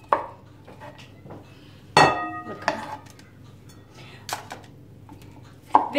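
Kitchen clatter while slicing: a knife knocks once on a wooden cutting board. About two seconds in comes a single loud ringing clink of a knife against a glass bowl or dish, followed by a few softer knocks.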